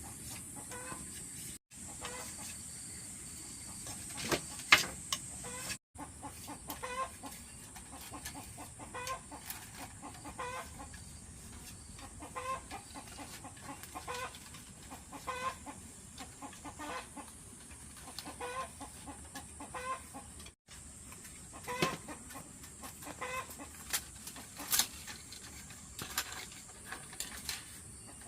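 Chickens clucking, short calls repeating about every second and a half. A few sharp knocks are heard, the loudest about five seconds in, over a steady high-pitched hiss.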